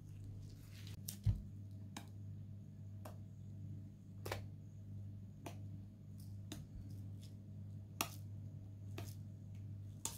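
Slime being handled, giving short sharp clicks and pops roughly once a second, with one heavier thump about a second in, over a low steady hum.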